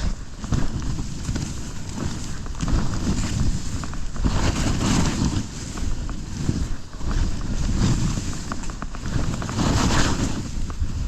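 Skis hissing and scraping through fresh snow in surges every two to three seconds, mixed with wind rumbling over the GoPro's microphone.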